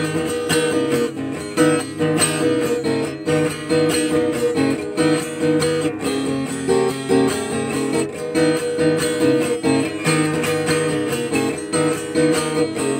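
Acoustic guitar strummed and picked in an instrumental passage without singing.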